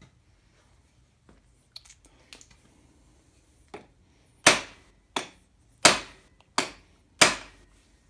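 Hammer tapping on metal, a cam bearing being nudged into place in the engine block: a few light clicks, then five sharp blows about two-thirds of a second apart from about halfway in.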